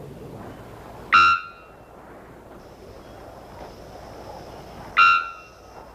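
Three-wattled bellbird calling twice, about four seconds apart, each call a loud, short, ringing note over steady forest background hiss.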